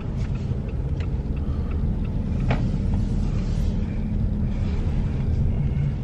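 Steady low rumble of a car running, heard from inside the cabin, with a couple of faint light clicks.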